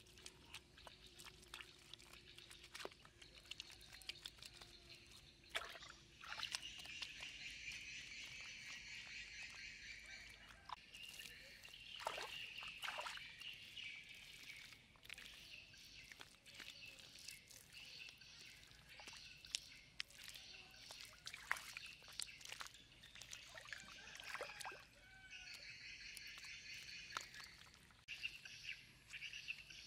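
Faint wet slaps, clicks and small splashes of hands patting and smoothing wet mud along a mud dike in shallow water, with a high chirping chorus in the background that comes and goes.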